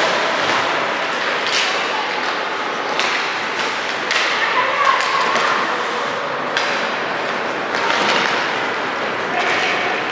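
Game play in an arena: sharp thuds and knocks of sticks and play against the surface and boards every second or two, over indistinct shouting voices of players and spectators, echoing in a large hall.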